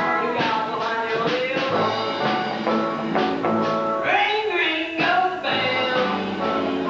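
A high school rock band playing rock and roll, with a singer over a steady drum beat.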